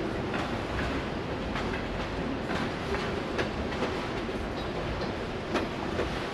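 Freight train of autorack cars rolling slowly over a grade crossing at about 10 mph: a steady rumble with irregular sharp clicks as the wheels pass over the rail joints.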